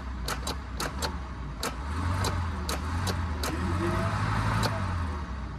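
Starter motor cranking a Honda CRX engine that has its spark plugs out, a steady whirring drone with a scatter of sharp clicks over it. The engine turns over freely without firing, cranked by bypassing a faulty key switch.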